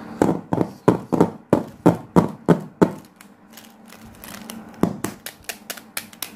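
Plastic colour pens being handled and knocked together against the desk: a run of sharp taps about three a second, quieter for a moment after about three seconds, then one more knock and lighter, quicker clicks near the end.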